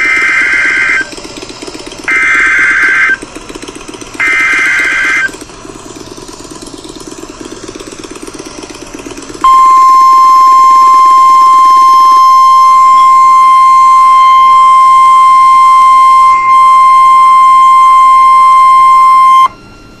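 Emergency Alert System broadcast on a weather radio. Three short warbling data bursts of the SAME header encode the tornado warning, followed after a pause by the single steady 1050 Hz warning alarm tone, held for about ten seconds and cut off abruptly. A low steady hum lies underneath.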